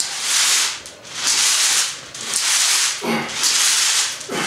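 Pea gravel sliding and rattling end to end inside a duct-taped PVC pipe as it is swung side to side, a gritty rush about once a second, four times. The shifting gravel is what loads the swing.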